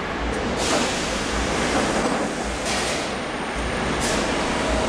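Steady machinery noise from a large press line, with a low thud repeating about once a second and three short bursts of hiss, about half a second in, near three seconds and at four seconds.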